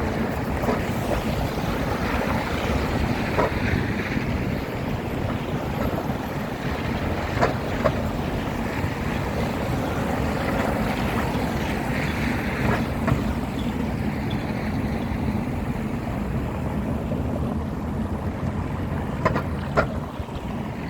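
Wind buffeting the microphone over a steady low outdoor rumble, with a few short sharp clicks scattered through it.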